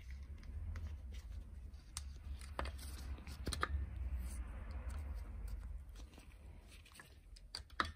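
Circlip pliers fitting a circlip onto the shaft at the centre of a motorcycle-type clutch hub: a few scattered light metal clicks over a low rumble of handling noise.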